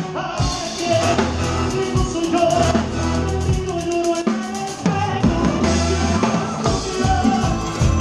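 Live band music as heard in the stage monitor mix: drum kit strikes and bass up front, with other instruments and singing.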